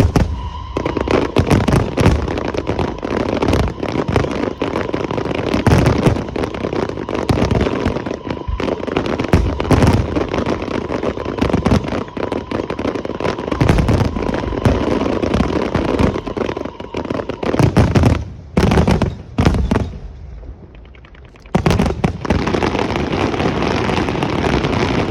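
Aerial firework shells bursting in a rapid, dense barrage of bangs, with a brief lull about twenty seconds in before the bursts resume.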